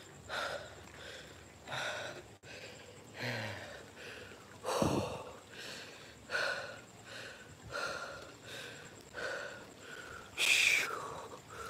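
A swimmer breathing hard close to the microphone: short, noisy breaths and gasps about once a second, with a louder one near the end.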